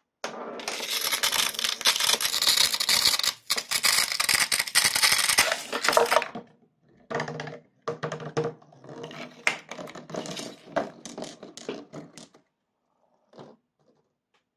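Glass marbles rolling and clattering along corrugated-cardboard marble-run tracks. A dense rattle of many marbles lasts about six seconds and stops suddenly, followed by shorter bursts of rolling and clicks, then one faint click near the end.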